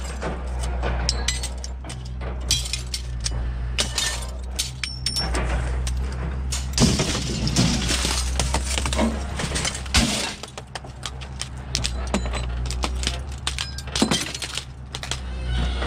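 Aluminum window frames with broken glass being pulled from a pile: repeated clattering of metal frames with glass clinking, crunching and shattering, busiest in the middle, over a steady low hum.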